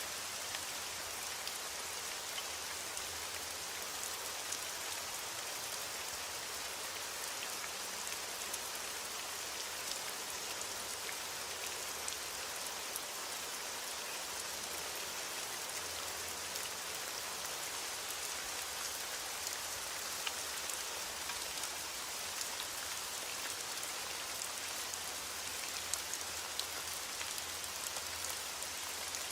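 Steady rain falling: an even hiss with many fine drop ticks scattered through it, a few of them a little louder.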